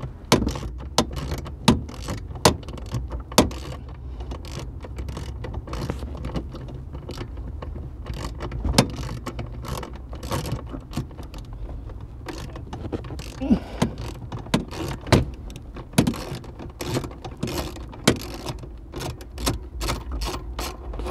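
Ratchet wrench with a 12 mm socket clicking, and metal tapping, at irregular intervals over a low steady hum, while a steering column mounting bolt is undone under a car's dashboard.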